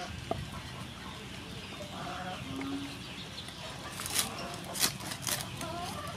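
Cleaver crunching through the crisp crackling skin of roast pork on a wooden board, with a few sharp crunches about four to five and a half seconds in. Short animal calls sound a few times in the background.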